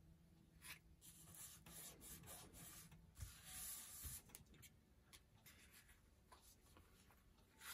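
Hands rubbing and smoothing paper pages flat to press down a fabric hinge stuck on with glue stick: faint, dry rustling and rubbing of paper, heaviest a little past the middle, with a few soft taps as the paper is handled.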